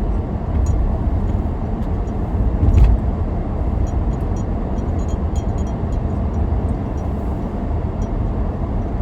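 Car cabin road noise: a steady low rumble of engine and tyres while driving, with a brief louder thump a little under three seconds in.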